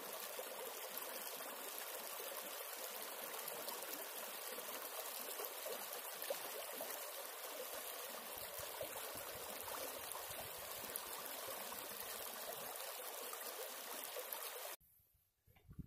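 Shallow creek running over rocks: a steady rush of water that cuts off suddenly about a second before the end.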